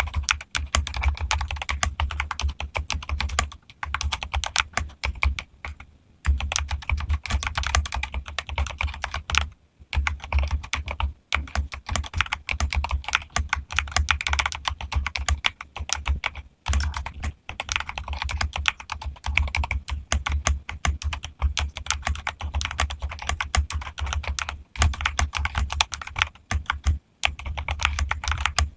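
Modified Keychron mechanical keyboard being typed on fast and continuously, a dense run of key clacks broken by a few brief pauses.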